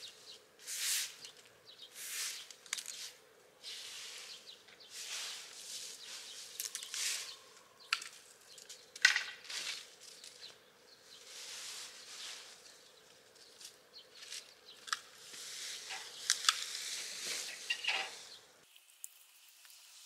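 Sweeping strokes across dry leaves on a concrete path, roughly one a second, with a few light knocks among them. The sweeping cuts off shortly before the end.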